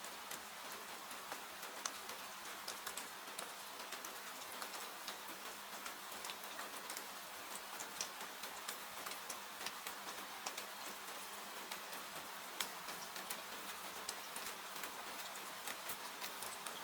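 Steady hiss of rain with a wood fire crackling over it: frequent small sharp pops, a few of them louder.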